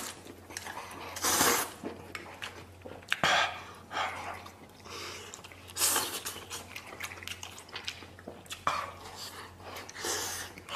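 A man slurping instant noodles in three loud bursts, about a second in, near the middle and near the end, with chewing and clicks of chopsticks against a stainless steel bowl in between.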